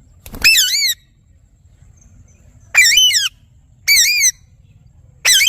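A parrot giving four harsh, squawking calls, each about half a second long with a wavering pitch, spaced one to two seconds apart.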